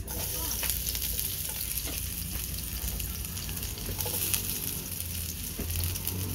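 Chopped garlic frying in hot oil in a frying pan as it is dropped in by hand: a steady sizzle with scattered crackles and one sharper pop about four seconds in.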